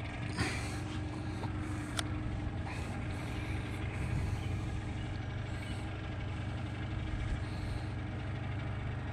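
A steady low rumble with a faint steady hum, and a single sharp click about two seconds in.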